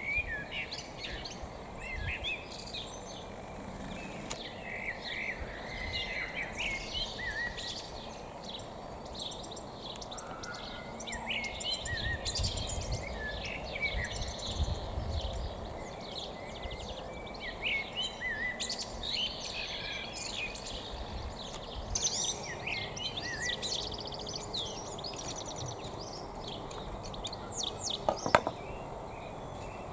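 Several songbirds singing and chirping at once, a busy, continuous mix of quick trills and calls over a steady low background rumble, with one sharp knock near the end.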